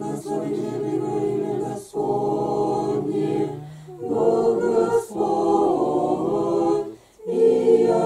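Small church choir singing an Orthodox liturgical chant unaccompanied, in four phrases with brief pauses for breath between them.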